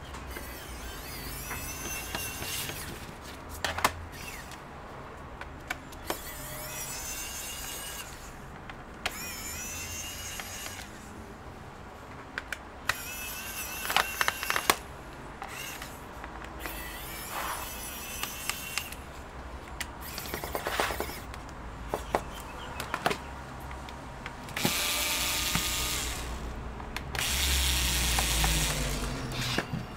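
Pen-style electric precision screwdriver backing out laptop bottom-cover screws: short whirring runs whose pitch rises as each screw frees, with sharp clicks in between. Near the end there are two longer stretches of louder noise.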